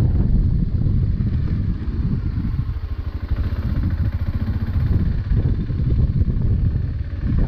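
BMW 650 GS adventure motorcycle's engine running, a steady low rumble with a brief dip in level partway through.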